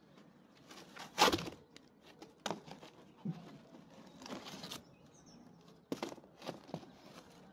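Rustling and scraping of hands-on garden work, with a loud scrape about a second in, a longer rustle around four seconds in, and scattered clicks and taps.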